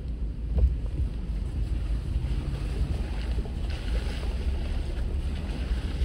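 Jeep driving slowly along an off-road trail: a steady low rumble of engine and tyres, with wind buffeting the microphone. A single knock comes about half a second in, and a hiss rises for a second or so past the middle.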